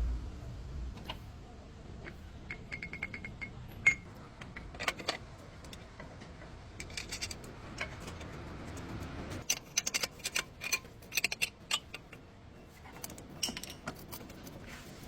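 Metal hand tools and parts clicking and clinking while being handled during a ball joint job, with a quick run of light ticks about three seconds in and a flurry of sharp metallic clinks around ten seconds in.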